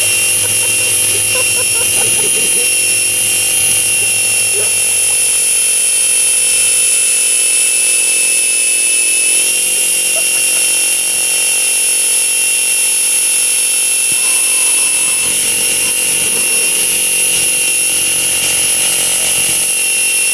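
Tacon brushless motor and drivetrain of a Traxxas Stampede VXL RC truck running at high speed with the rear tire spinning in place in a burnout, giving a loud, steady high-pitched whine that steps slightly in pitch about halfway through and again later on.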